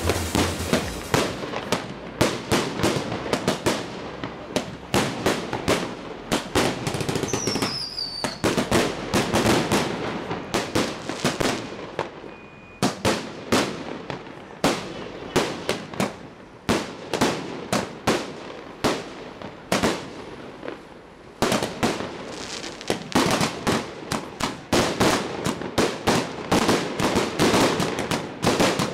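Chinese firecrackers going off in a rapid, continuous crackle of sharp bangs, thinning out now and then and growing denser and louder again about two-thirds of the way through. A short falling whistle cuts through about seven seconds in.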